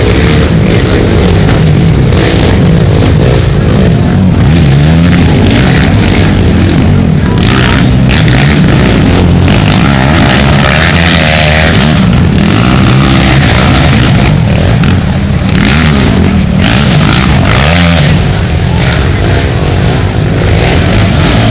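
Several racing ATV engines revving hard and passing, their pitch rising and falling as the throttles open and close, with more than one engine heard at once.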